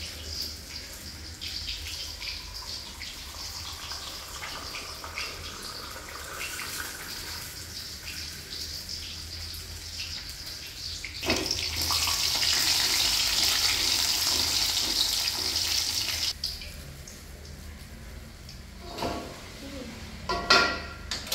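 Water running from a tap into a sink, flowing harder for about five seconds midway, with a few knocks near the end.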